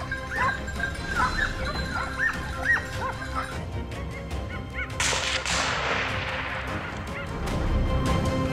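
Dogs yelping and barking in quick, high-pitched calls for about the first three seconds. About five seconds in, a sudden rush of noise follows and slowly fades.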